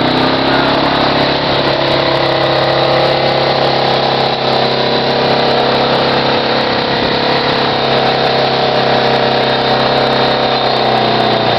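ATV engine running steadily, its pitch holding level.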